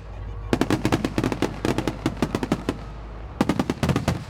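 Fireworks crackling in rapid runs of sharp pops: one run from about half a second in to nearly three seconds, and a shorter one near the end.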